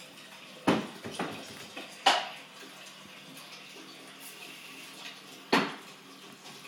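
Three sharp clacks or knocks: one under a second in with a smaller one just after, one about two seconds in, and one past five seconds, over a faint steady background.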